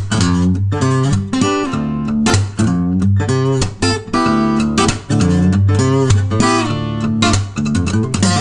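Instrumental music: a guitar picking a quick melody of short notes over a low bass line.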